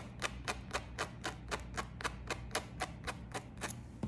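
Tweezers plucking hairs out of a lace frontal wig: a steady run of sharp clicks, about four a second, stopping near the end.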